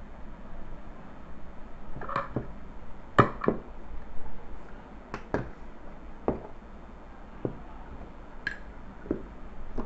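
Hard plastic vacuum-cleaner attachments and extension tubes clicking and knocking as they are handled and set down, several separate knocks with the loudest about three seconds in.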